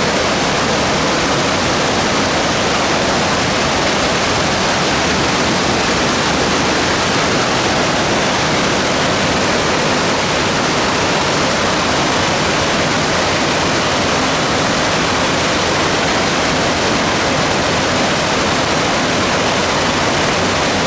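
Loud, steady rush of water pouring over the man-made falls and rapids of a river-rafting ride, an even unbroken noise with no change.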